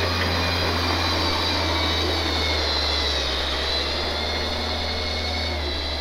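Propane forklift's engine running steadily close by, a deep hum with a high, slightly wavering whine over it.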